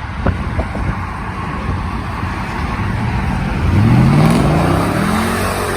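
A truck's engine at full throttle as it accelerates away. The engine rumbles at first, then the revs climb sharply in pitch about three and a half seconds in, loudest around four seconds.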